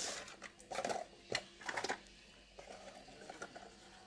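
Cardboard product box being opened by hand: short bursts of scraping and rustling packaging, with a sharp click about a second and a half in, then quieter handling.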